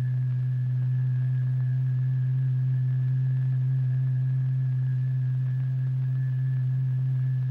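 A strong, steady low tone driving the vibrating membrane, the note that throws the paste into spikes and eruptions. It holds without change, with fainter higher overtones and a thin high whistle above it.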